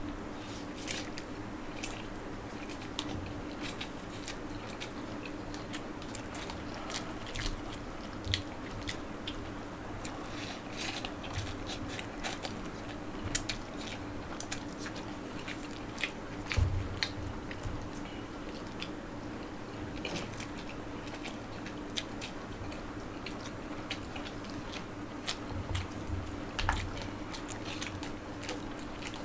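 Close-miked eating of spicy instant noodles: chewing and biting with scattered sharp clicks and crunches, over a steady low hum.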